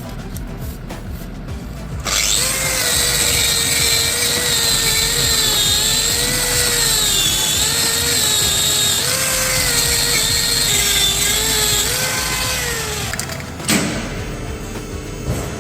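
A power tool running for about eleven seconds, starting about two seconds in and stopping near the end, its pitch wavering slightly as it works under load. A single sharp click follows just after it stops.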